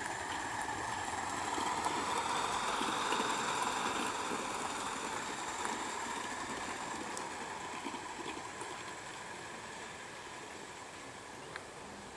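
O gauge model train running past on the track: a steady rushing rumble of wheels on rail that swells over the first few seconds and then slowly fades as the train moves away.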